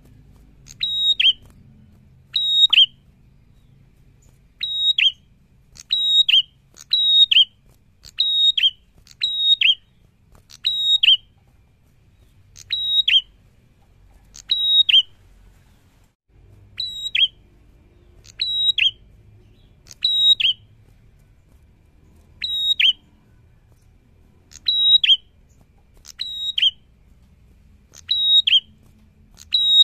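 Caged prenjak giving its loud, repeated call: each phrase is a short high note followed by a sharp downward-sliding whistle. The phrases come about once a second, with a few brief pauses.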